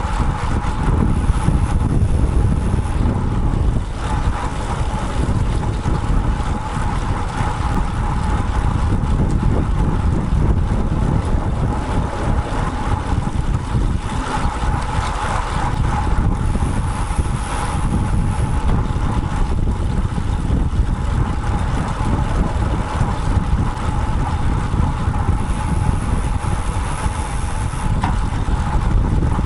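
Wind rushing over a bicycle-mounted action camera's microphone as the road bike rides along, with a steady rumble of road and traffic noise and a steady mid-pitched hum throughout.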